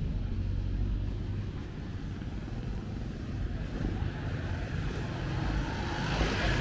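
Street traffic: a steady low rumble of motor vehicles, with one growing louder as it passes close near the end.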